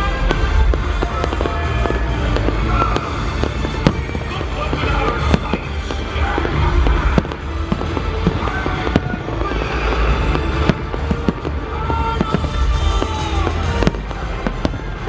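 Fireworks display: many firework bangs and crackles, going off irregularly, over music playing throughout and a heavy low rumble.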